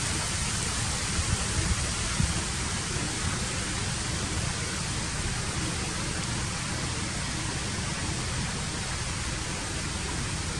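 Steady hiss with a low rumble beneath it, even throughout, with no animal calls or other distinct sounds.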